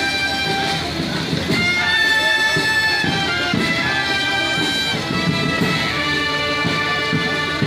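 Military band playing, brass instruments carrying the tune in held notes that change every second or so.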